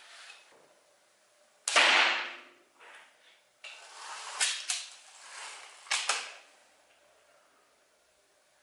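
MARK 3 slingshot rifle firing 8 mm steel balls at a target. One sharp, loud shot comes about two seconds in, then a run of shorter snaps and clacks between about four and six seconds.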